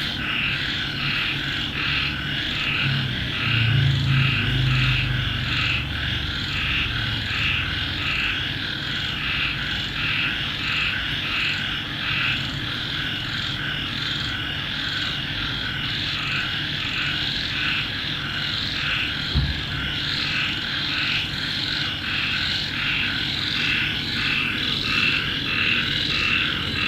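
Steady chorus of rhythmic animal calls, pulsing about twice a second, over a low background hum, with a single knock about two-thirds of the way through.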